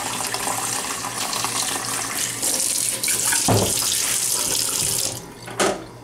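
Kitchen tap running water into a plastic coffee carafe held in a stainless steel sink, a steady splashing hiss with a knock about halfway through. The flow stops about five seconds in, followed by another short knock.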